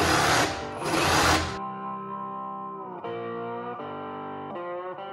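A Hercules cordless reciprocating saw with a small blade cuts through plywood in short bursts, stopping abruptly about one and a half seconds in. After that only background music with guitar is heard.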